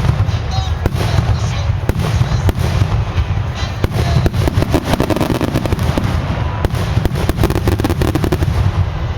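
Fireworks display: a continuous low rumble of shell bursts overlaid with many sharp bangs and crackles, coming thickest in the second half.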